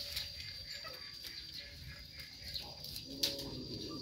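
Leaves rustling and twigs snapping as baby goats tug and strip a leafy branch, a run of irregular crackles and clicks, the sharpest a little after three seconds in. A short, low pitched call comes near the end.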